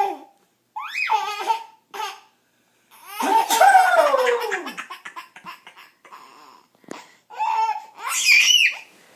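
Baby laughing in repeated bursts of belly laughter and giggles, the longest and loudest burst about three seconds in, with high-pitched squeals near the end.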